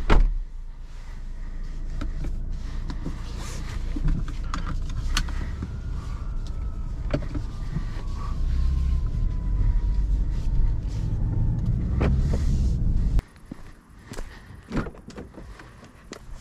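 A car door shuts with a thump. Then comes a low steady rumble inside the cabin of a BMW 530i Touring with its 2.0-litre turbo engine running, with scattered clicks and knocks; it stops abruptly about thirteen seconds in. After that there are only faint clicks and rustling, with the door opening.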